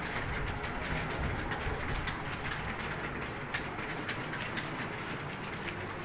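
Many computer keyboards clattering at once as a roomful of typists type, a dense, irregular stream of key clicks over a low steady hum.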